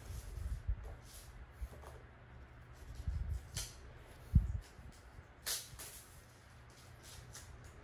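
Graphite mechanical pencil scratching on paper in short strokes, with soft knocks of the hand and pencil on a wooden desk; the loudest knock comes a little past halfway.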